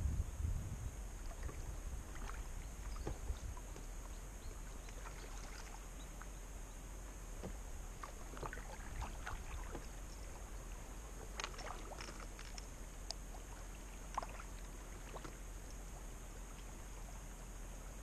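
Kayak paddle strokes on calm water: scattered small splashes and drips as the blades dip and lift, busiest around the middle. A low wind rumble on the microphone at the very start.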